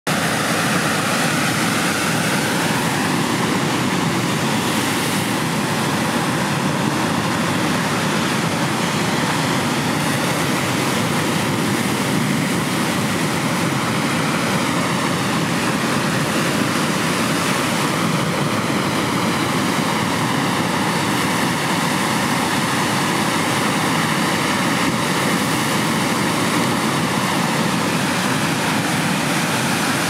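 Rough sea surf: a continuous, steady rushing of breaking waves.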